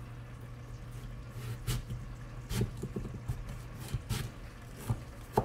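Chef's knife cutting through raw butternut squash on a plastic cutting board: a handful of irregular knocks as the blade meets the board and the pieces are moved, over a steady low hum.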